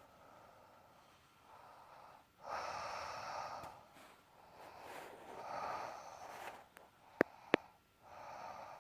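A sleeping person snoring: a series of noisy breaths a few seconds apart, the loudest about two and a half seconds in. Two sharp clicks come about seven seconds in.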